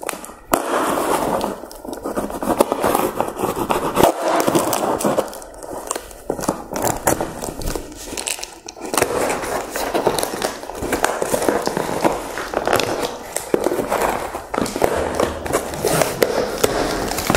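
Cardboard shipping box being opened by hand: packing tape slit with a knife and peeled, crackling and tearing, and cardboard flaps scraping as they are pulled apart.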